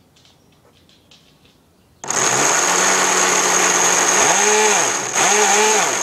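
Traxxas Blast RC boat's electric motor and propeller spinning out of the water. It starts suddenly about two seconds in as a loud whir with a high steady whine. Near the end its lower tones rise and fall twice, with a brief dip between, and it cuts off at the end.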